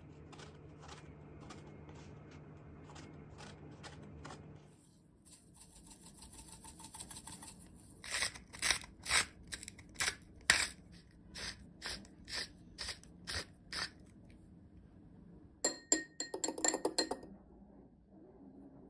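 A kitchen knife scores eggplant slices on a wooden cutting board with light, regular taps. A spice grinder is then turned over a glass bowl of olive oil, giving about a dozen sharp grinding strokes at roughly two a second. A short burst of rapid clinking follows near the end.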